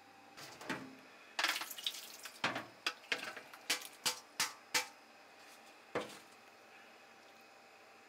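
A mixing bowl and a plastic colander knocking and clattering in a stainless steel sink as salmon roe is tipped from the bowl into the colander. It is a run of sharp knocks and taps, some ringing briefly, mostly between one and five seconds in, with a last knock about six seconds in.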